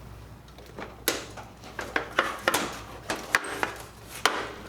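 Irregular metal knocks and clatter of a Star two-sided countertop sandwich grill being handled and turned back over onto its feet, about ten sharp knocks over a few seconds.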